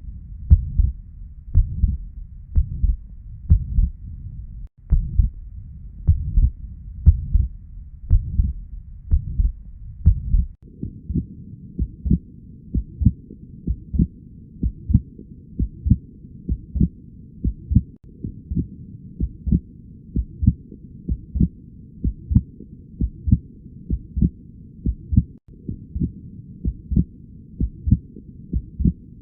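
Heart sounds recorded through a stethoscope: a steady, regular lub-dub beat. Several short recordings are joined, with breaks about five and ten seconds in, after which the beat sounds duller.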